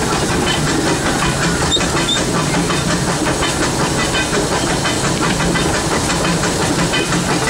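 The E.P. Ripley steam locomotive running, heard from inside its cab: a steady hiss of steam over the even, rhythmic clatter of the moving engine.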